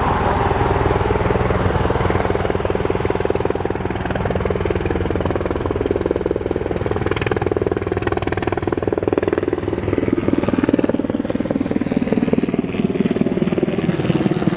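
UH-60 Black Hawk helicopter in flight: a steady, fast rotor beat with an engine tone that slides in pitch a couple of times as the aircraft moves.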